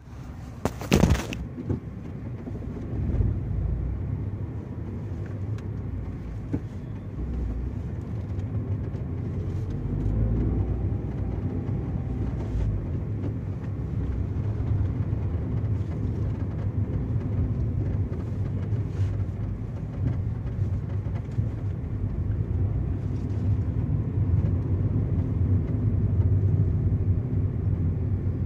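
2019 Tata Tiago on the move: steady road and engine rumble with scattered short rattles and knocks, including a loud knock about a second in. The rattling is a fault the dealer has not been able to trace.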